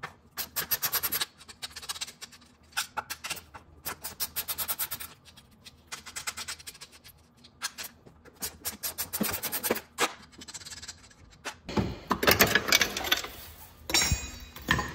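Ratchet wrench clicking in repeated short bursts as it works the nuts on a strut's top mount. Near the end comes a louder stretch of clatter and scraping.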